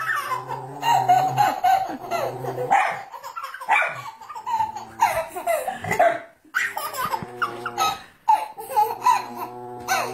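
A baby laughing in repeated belly laughs, with a small dog barking at her now and then.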